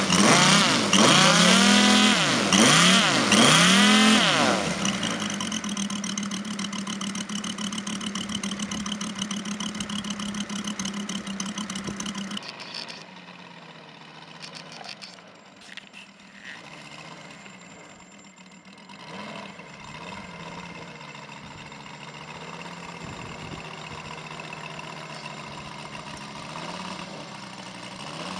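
Moki 150cc five-cylinder four-stroke radial engine on a large RC Yak-54 model, warming up: revved in four quick throttle blips, then held at a steady fast idle. About twelve seconds in it drops to a fainter, more distant run as the plane taxis away down the runway.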